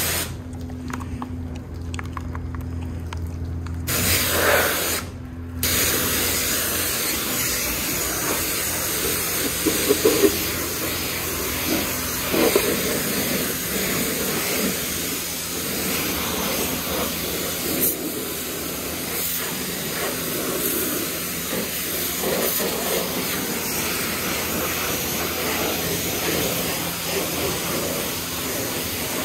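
High-pressure car-wash wand spraying soapy water against a car's body, a steady hiss. For the first few seconds there is mainly a low steady hum; the spray then runs without a break from about five seconds in.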